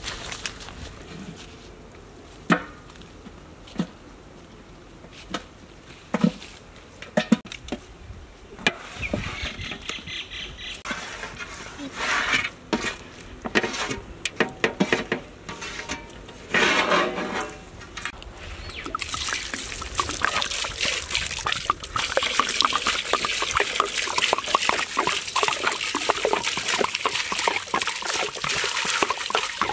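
Raw chicken pieces knocking and clattering as they are tipped from a metal platter into a large metal pot. About two-thirds of the way in, water starts pouring and splashing steadily over the chicken in the pot as it is washed by hand.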